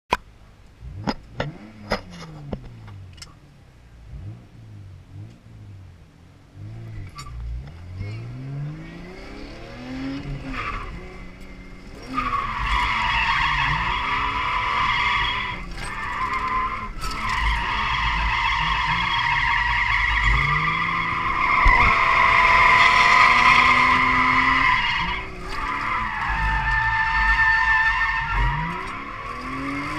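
Lexus SC300's 2JZ inline-six revving up and down, heard from inside the cabin, with a few sharp clicks in the first few seconds. From about twelve seconds in, loud sustained tyre squeal as the car drifts, the engine revs still rising and falling beneath it and easing briefly near the end.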